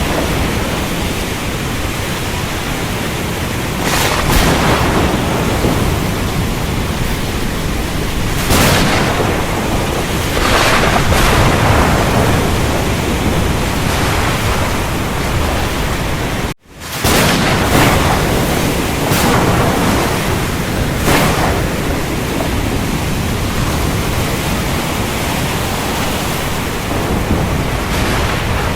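Steady heavy rain in a thunderstorm, with rumbles and surges swelling up every few seconds. About two-thirds of the way through the sound cuts out completely for an instant, then fades back in, as at a splice in a looped recording.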